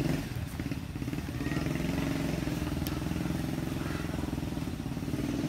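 Small motorcycle engine running steadily, growing louder about a second and a half in.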